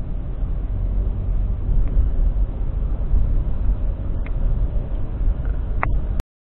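Steady low rumble of a car driving in traffic, heard from inside the car, with a few brief faint clicks. It cuts off suddenly near the end.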